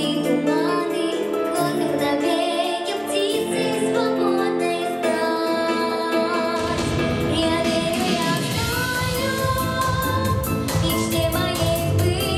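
A female voice singing a song over a backing track, with held notes sung with vibrato; about seven seconds in, a drum beat and bass come in under the voice.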